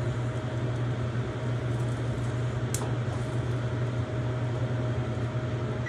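Steady fan hum with a thin tone above it, and a single sharp click near the middle.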